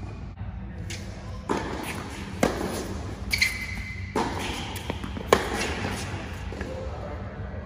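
Tennis ball struck by rackets and bouncing on an indoor hard court during a rally: about five sharp pops roughly a second apart, echoing in the hall. A brief squeak about three seconds in, over a low steady hum.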